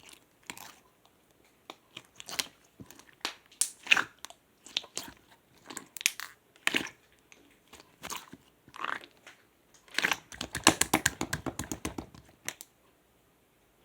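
Clear slime being squished and worked by hand, giving scattered sticky pops and clicks, then a quick run of rapid clicking pops about ten seconds in that lasts a couple of seconds.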